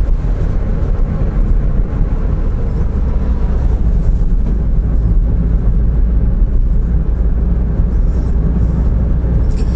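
Honda S660's small turbocharged three-cylinder engine, with an HKS Legamax Sports exhaust, and tyre noise while the car cruises at steady speed. It makes a steady, even low rumble.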